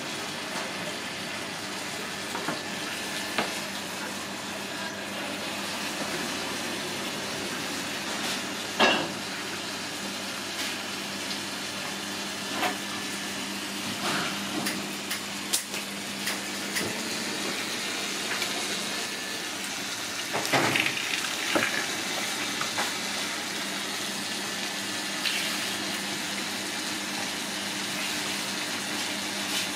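Steady rushing of running water over a low hum, broken by a few scattered sharp clicks and clatters.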